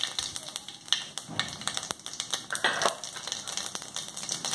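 Cumin seeds crackling in hot oil in a kadai: irregular sharp pops and crackles over a faint frying hiss.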